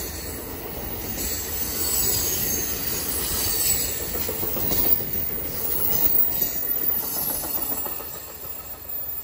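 Amtrak passenger cars rolling past at speed close by: a steady rush and rumble of steel wheels on rail, with irregular clicks over the rail joints. The sound drops off near the end as the last car passes.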